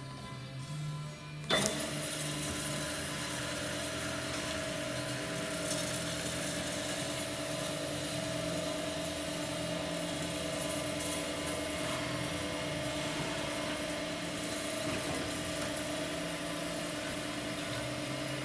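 Mep Shark 282 SXI EVO metal-cutting band saw running: it starts abruptly about one and a half seconds in, then its motor and blade keep up a steady, even hum.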